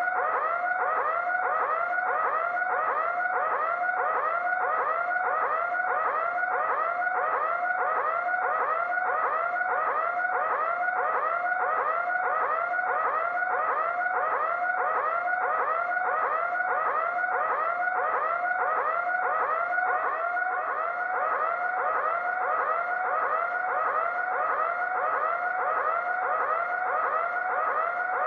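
Electronic alarm sounder wailing in a fast, even warble, about two and a half pitch sweeps a second, steady and unbroken.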